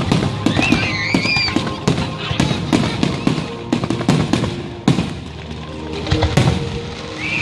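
Fireworks bursting in quick succession, a rapid series of bangs and crackles over music played through loudspeakers. The bangs thin out near the end.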